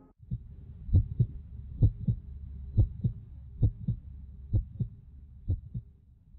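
Heartbeat sound effect: paired low thumps, lub-dub, repeating a little more than once a second and getting weaker near the end.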